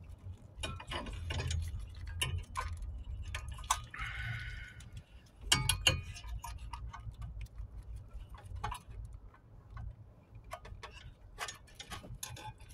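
Plastic clicks and rattles of wiring harness connectors being handled and pushed onto a Nissan Murano's transmission control module. Irregular ticks throughout, with a short scraping rustle about four seconds in and the sharpest clicks about six seconds in.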